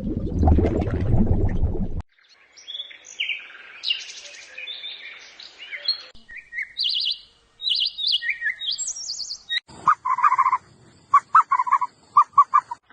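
Birds singing and chirping in several short, differing stretches: quick high chirps and trills, then near the end a run of sharp repeated notes. It follows a loud, noisy sound that cuts off about two seconds in.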